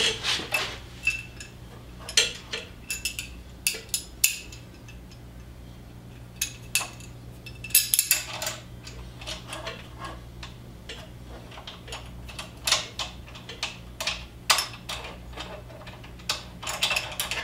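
Light metal clinks and clicks as a steel right-angle bracket, bolt and locking nut are handled while the bolt is worked into the nut, coming in scattered clusters. A faint steady low hum runs underneath.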